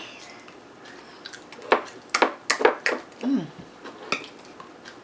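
A metal spoon clinking and scraping against an ice cream sundae dish: quiet at first, then a quick run of sharp clinks about two seconds in and one more near the end.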